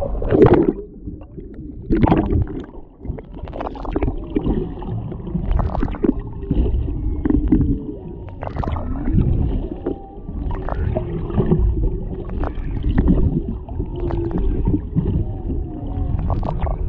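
Humpback whale song heard underwater through a camera's built-in microphone: low moans and sliding, rising and falling tones, with occasional sharp clicks.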